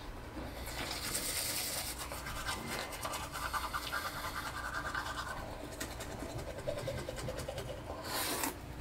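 Teeth being brushed with a toothbrush: rapid scratchy back-and-forth scrubbing, with a brief louder burst near the end.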